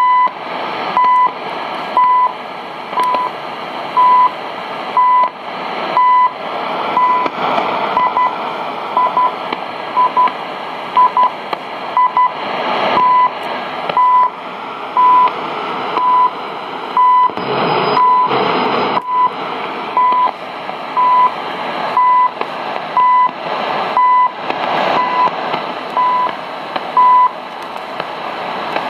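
Shortwave time signal from CHU on 7850 kHz through a world band receiver: a 1000 Hz beep marks each second over steady hiss and static that swells and fades. Around the middle, several of the beeps are split into two short pips, CHU's coded DUT1 second markers.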